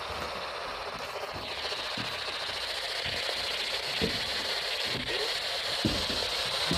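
Spirit box radio sweeping through AM/FM stations, giving a steady hiss of static. A few dull footsteps thump on the stairs, about one every second or two.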